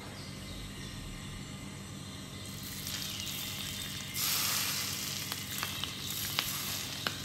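Hot melted butter poured over a şırdan (stuffed lamb abomasum), sizzling on contact. The sizzle grows louder about four seconds in, with a few light clicks near the end.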